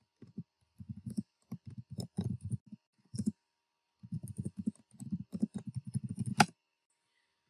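Typing on a computer keyboard: quick runs of keystrokes broken by short pauses, with one sharper key click about six and a half seconds in.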